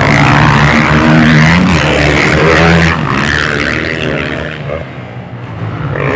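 Motocross dirt bike engine revving hard as the bike passes close by, then fading after about three seconds as it rides away.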